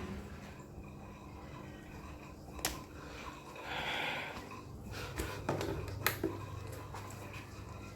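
Small electric fan running with a steady low hum, with several sharp clicks scattered through and a short hiss near the middle.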